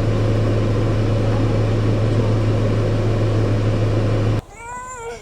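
An electric appliance running with a loud, steady low hum, cutting off abruptly about four seconds in. A short, high-pitched gliding vocal sound follows just after it stops.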